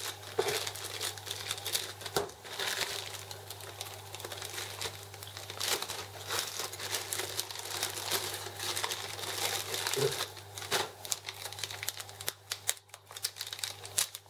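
Thin clear plastic bag crinkling and rustling in irregular bursts as it is handled and opened to take out a refillable ink cartridge.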